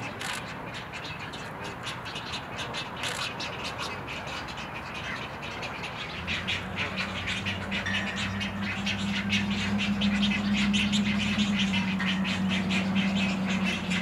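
Juvenile great egrets in a nesting colony giving rapid clicking, chattering calls, which grow busier about six seconds in. A steady low hum joins at the same time.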